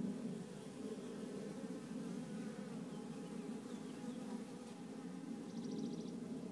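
Steady, dense buzzing hum of a mass of honeybees crawling over open comb in a queenless, drone-laying nucleus colony.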